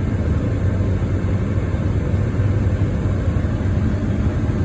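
Steady rush of air from a Chevy Silverado's dashboard heater blower fan running on setting 5, with the mode switched to defrost. The newly replaced mode actuator is sending the air to the defrost vents.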